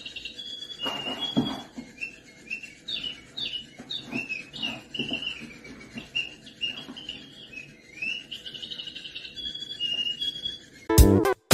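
A sparrow chirping over and over in short, high chirps and quick trills, with a few soft thuds about a second in. Near the end the chirping stops and loud guitar music begins.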